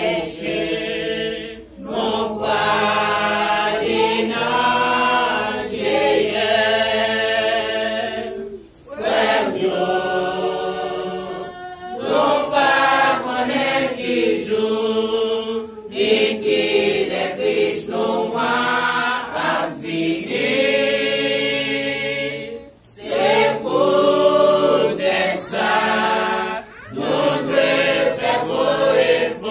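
A congregation singing a hymn together from hymnbooks, in phrases a few seconds long with short breaks between them.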